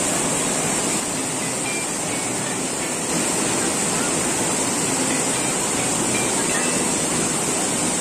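Waterfall and mountain stream water rushing steadily.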